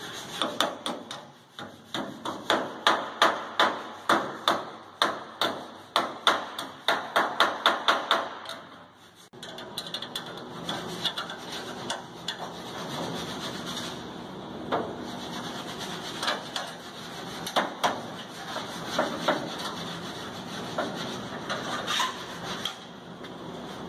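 Body hammer striking sheet-steel bodywork in a quick, even run of blows, about three or four a second. After about nine seconds it gives way to a steady scraping noise with occasional lighter knocks as a metal piece is worked against the panel.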